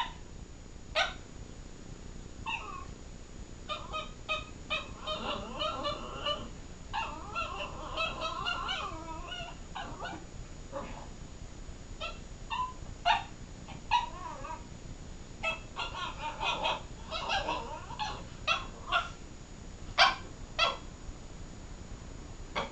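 Miniature pinscher "talking": bouts of wavering, whiny vocalizations with short sharp yips in between, several times over. These are attention-seeking calls aimed at waking a sleeping chihuahua.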